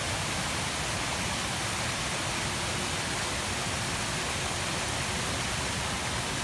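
Fountain jets splashing down into the basin: a steady, even rush of falling water.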